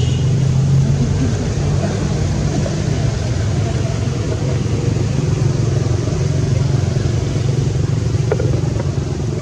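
Steady low rumble of a motor vehicle engine running, with a brief faint click near the end.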